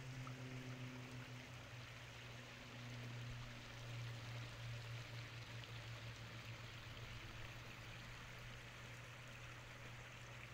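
Running water hissing steadily, with a constant low hum underneath.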